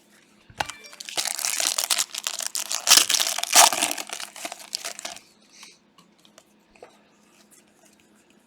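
A foil trading-card pack wrapper being torn open and crinkled by hand, a dense crackling that lasts about four seconds and is loudest near the middle, followed by a few faint clicks of cards being handled.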